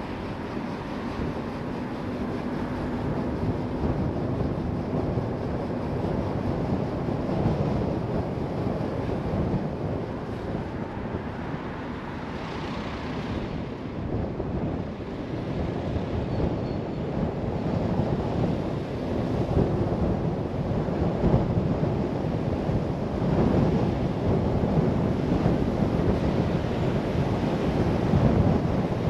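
Car in motion: a steady rush of road and wind noise, with wind buffeting the microphone, growing somewhat louder in the last several seconds.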